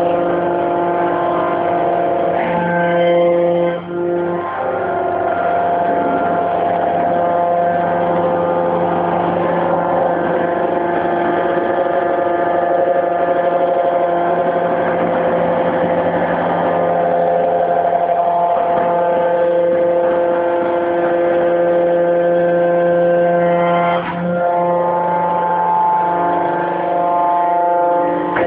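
Hydraulic scrap metal baler running: a steady machine drone from its engine and hydraulic pump, with several held tones. The pitch pattern shifts and the level dips briefly about four seconds in and again near the end, as the load on the machine changes.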